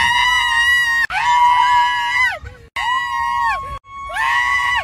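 Excited high-pitched screaming by a woman's voice inside a car's cabin: four long held screams of about a second each, every one dropping in pitch as it ends.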